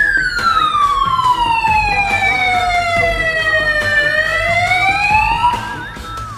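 Electronic hooter of a burglar-alarm system sounding in alert: one long siren tone that slides down in pitch for about four seconds, then climbs again and fades near the end.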